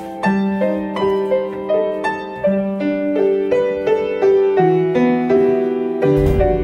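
Upright piano playing a slow choir accompaniment: a melody in chords over held bass notes. There is a short low thump near the end.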